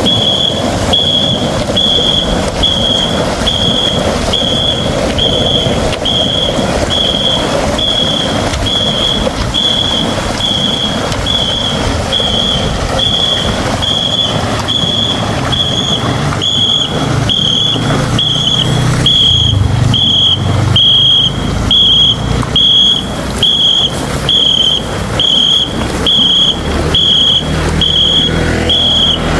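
A whistle blown in short, even, high blasts a little more than once a second, setting the stroke rate for a team of ngo-boat paddlers. Under it, the steady churn and splash of many paddles striking the water in time.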